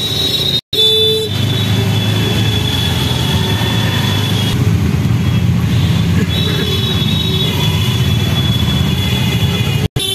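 Road traffic heard from a moving vehicle on a wet city street: a steady low rumble of engines and tyres with a thin, high, steady whine above it. The sound cuts out sharply twice, about a second in and near the end.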